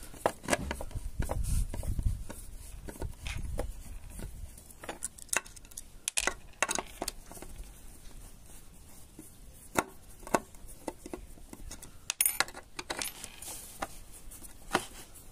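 Screwdriver working at the hinge screws of a wooden door: irregular metallic clicks, scrapes and knocks as the screws are turned and the tool slips, with a low rumble of handling in the first few seconds.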